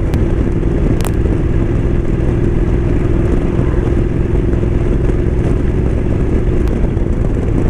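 Motorcycle engine running at a steady cruise under heavy wind rush on the microphone, with a steady hum through it. Two brief clicks come near the start, about a second apart.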